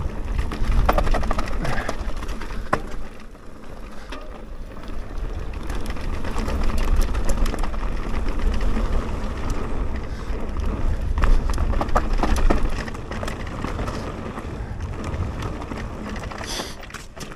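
A mountain bike rolling down a dirt forest trail: tyres rumbling over rough ground, with a steady run of clicks and knocks from the chain and frame rattling. Wind rumbles on the microphone. The noise eases twice, where the trail slows.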